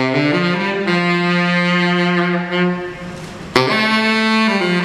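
Tenor saxophone playing a slow melody: a few rising notes lead into one long held note, then after a short break a new phrase begins about three and a half seconds in.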